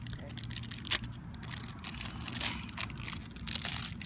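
Small plastic wrapper being handled and pulled open by hand, a run of crinkling crackles with one sharper snap about a second in.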